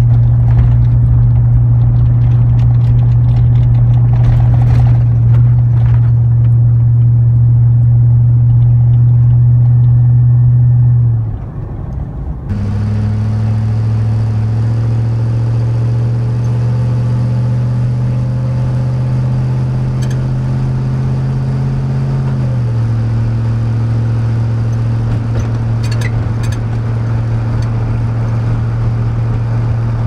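Chevrolet 5.3L LM7 V8 exhaust droning steadily under load, first through a Cherry Bomb M-80 muffler heard inside the pickup's cab. After a short break about 12 seconds in, the same engine drones through a Cherry Bomb Extreme muffler, its pitch dropping slightly about 22 seconds in.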